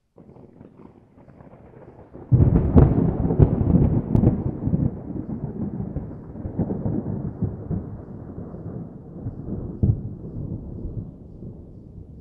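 A deep, thunder-like rumble. It starts faint, breaks in loudly with a few sharp cracks about two seconds in, then rolls on and slowly fades.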